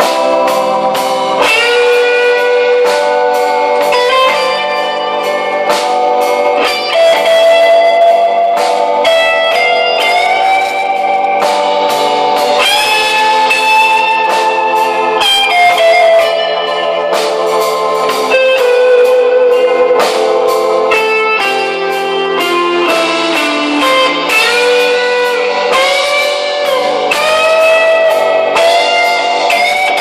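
Live instrumental rock band: an electric guitar plays a singing lead melody of long held notes that bend and slide in pitch, over bass guitar and a steady drum beat.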